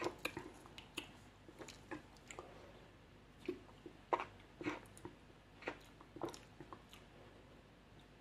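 Quiet mouth sounds of someone tasting a fizzy soft drink: scattered lip smacks, sips and swallows.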